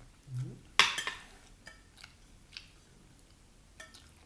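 Cutlery clinking against a plate while eating: one sharp knock about a second in, then a few lighter taps, the last with a short ring.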